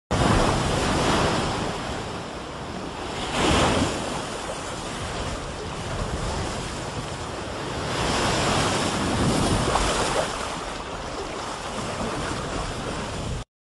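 Ocean surf: an even rush of waves breaking on a beach that swells and ebbs several times, then cuts off suddenly near the end.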